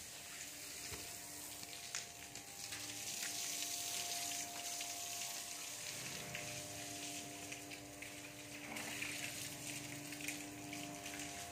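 Water spraying from a garden hose onto a wet tiled floor, a steady hiss.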